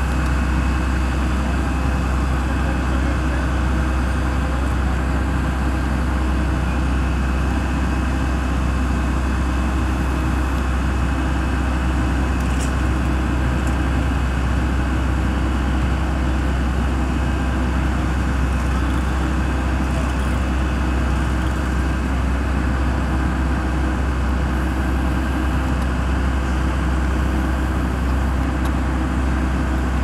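Steady, unchanging drone of idling vehicle engines mixed with road traffic noise: a deep constant rumble with several held tones above it.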